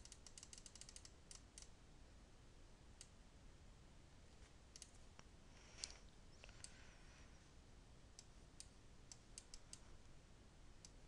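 Faint clicking of a computer mouse: a fast run of clicks in the first second and a half, then scattered single clicks, and a quicker cluster near the end.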